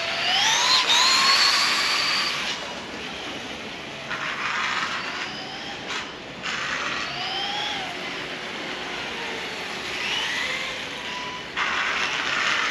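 Pro-Line Promoto-MX radio-controlled motorcycle's electric motor whining, rising in pitch with each of about five bursts of throttle, loudest in the first two seconds.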